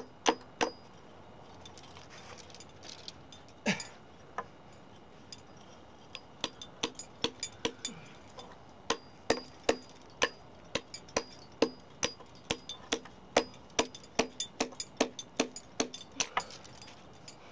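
Climbing hammer striking a steel piton in a granite crack, each blow ringing briefly, to knock loose a stubborn piton while cleaning the pitch. A few blows at the start, one lone blow near four seconds in, then a steady run of about two strikes a second.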